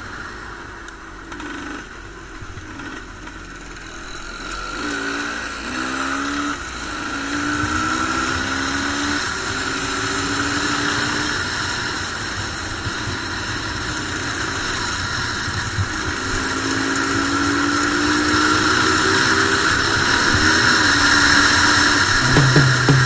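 Classic Ossa two-stroke enduro motorcycle running, its engine note rising and falling again and again as it accelerates and eases off, growing louder toward the end.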